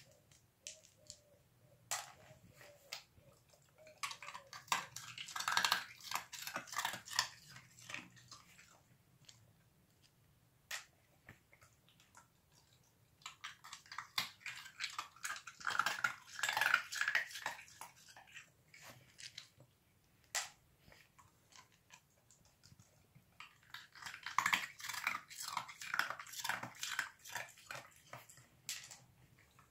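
Irish terrier puppy chewing and crunching ice in three bouts of rapid crunches a few seconds long, with scattered single crunches between.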